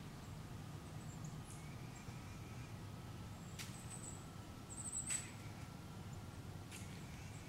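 Quiet winter woods: a low, steady hum under a few brief, very high, thin chirps of small birds around the middle, with two faint clicks.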